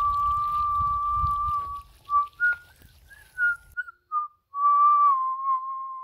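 A person whistling a tune: a long held note, a few short quick notes, then another long note that slides slightly down in pitch.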